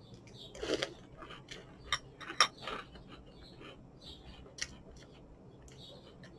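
A spoon clinking and scraping lightly in a cereal bowl: a few faint, scattered clicks with soft rustling between them.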